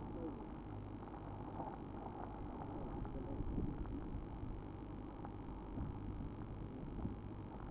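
Blue tit nestlings peeping: thin, very high chirps scattered irregularly, several a second in the middle and sparser near the end.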